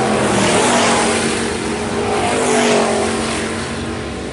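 IMCA Hobby Stock race cars running flat out past on a dirt oval, their engines swelling loudly as cars go by near the start and again about two and a half seconds in, then easing off toward the end.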